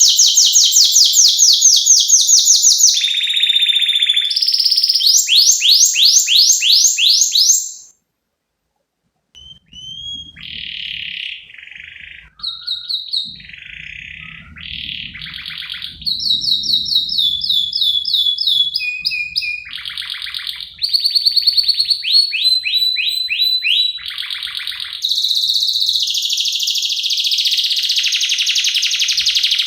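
Domestic canary singing a long, fast song of rapid trills and rolls with varied chirping phrases. The song breaks off into silence about eight seconds in, resumes quieter over a faint low hum, and is loud again in the second half.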